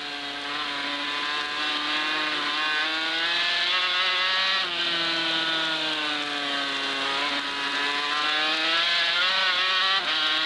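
On-board sound of a Yamaha 500cc two-stroke Grand Prix racing motorcycle at racing speed. The engine note rises and falls through the corners, with a sudden drop just under five seconds in. The revs flare at times, which the commentator hears as the rear wheel spinning.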